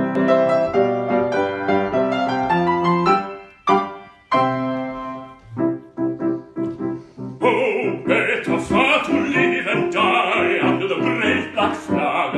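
Grand piano playing an introduction, breaking off briefly about four seconds in. About seven seconds in, a baritone enters singing in full operatic voice over the piano accompaniment.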